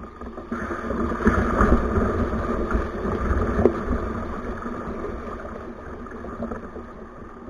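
Water rushing down a river boat chute as a kayak slides through it. The rush swells about half a second in and slowly fades away, with a single knock about three and a half seconds in.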